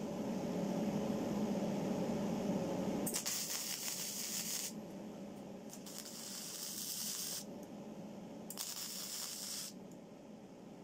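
Electric arc welding on steel scroll parts: three crackling hisses lasting one to two seconds each, the first about three seconds in. Before them, a steady low hum.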